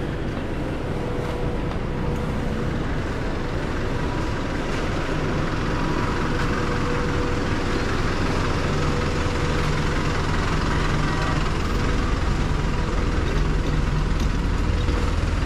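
Road traffic: a steady low rumble of vehicle engines running.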